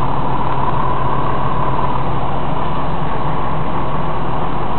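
River Line diesel light-rail tram running at the platform: a steady engine drone with a constant low hum and a fainter high hum, unchanging throughout.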